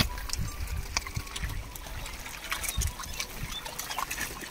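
Water splashing and trickling as a packed crowd of fish thrash at the pond's surface over thrown food, with many small irregular splashes. A sharp knock right at the start.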